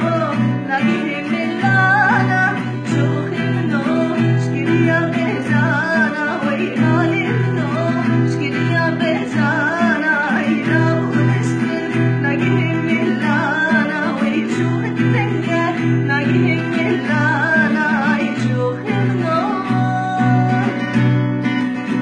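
Singing with a wavering, ornamented melody over plucked guitar accompaniment.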